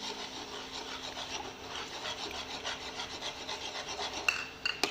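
Cooking spoon scraping and stirring through thick onion-tomato masala in a pan, a steady run of rasping strokes as raw eggs are being mixed in, with two sharp metallic clinks against the pan near the end.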